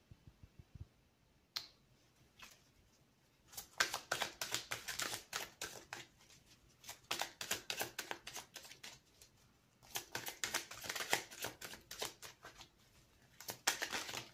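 A deck of oracle cards being shuffled by hand: after a couple of soft taps, several bursts of rapid flicking, each a couple of seconds long, with short pauses between.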